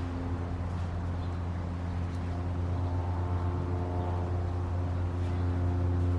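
A steady low hum, with a few faint, short, high chirps from an African grey parrot.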